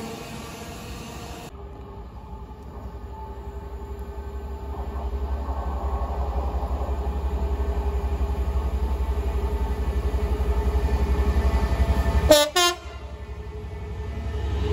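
Freightliner Class 66 diesel locomotive approaching, its two-stroke V12 engine a low throb that grows steadily louder. About twelve seconds in it gives two short blasts on its horn, the loudest sound, and the rumble swells again as the locomotive and its wagons reach the platform.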